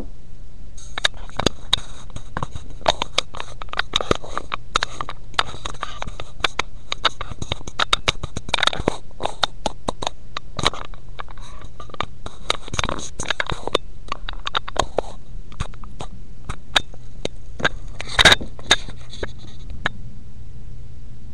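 Handling noise from a webcam microphone being moved about: many irregular clicks, knocks and scrapes over a steady low hum, with a couple of louder knocks near the end.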